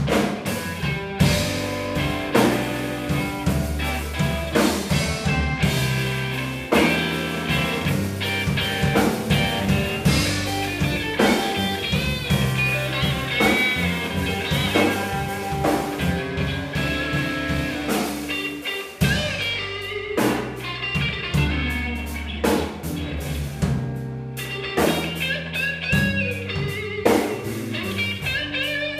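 A live blues band playing a slow blues: electric guitar lead with bent notes over bass and a drum kit.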